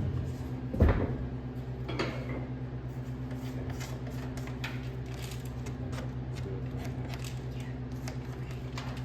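Handling noises from epoxy work: a loud thud about a second in, a smaller knock a second later, then light scattered clicks and scrapes. A steady low electrical hum runs underneath.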